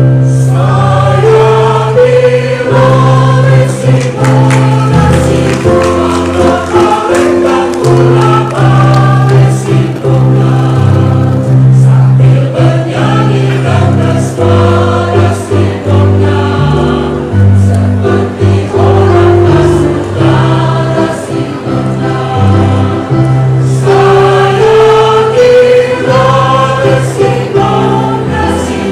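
Mixed choir of women and men singing a song together, several voices in harmony, with steady low held notes underneath that change every second or two.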